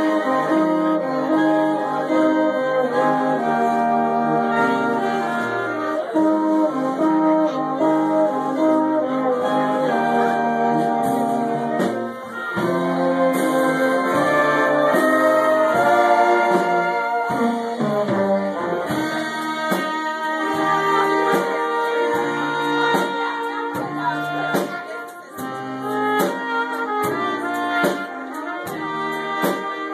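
German oompah-style band playing a tune live, with clarinets, accordion, trumpets and tuba. The brass is the loudest part.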